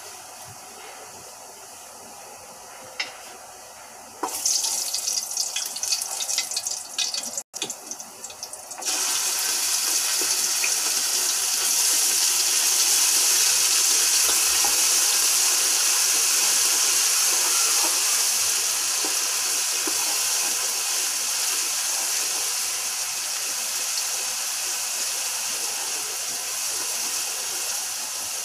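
Hot cooking oil with whole spices crackling and spitting in an aluminium pressure cooker, then, about nine seconds in, a sudden loud steady sizzle as chopped ingredients fry in the oil, stirred with a wooden spoon; the sizzle eases slightly near the end.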